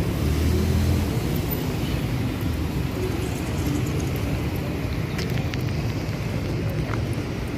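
Busy city-street traffic: motor vehicle engines running past in a steady low rumble, with a few short sharp ticks a little past the middle.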